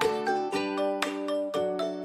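Light instrumental background music: a bright tune of quick notes, each sharply struck and fading, several a second.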